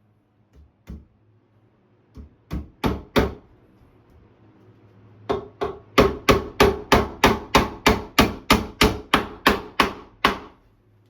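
Hammer driving nails into wood. A few scattered blows come first, then a steady run of about three strikes a second that stops shortly before the end.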